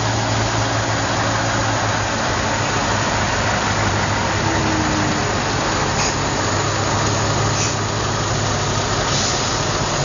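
Diesel engines of a column of heavy trucks rolling slowly past at low revs, a steady low hum with no rise or fall.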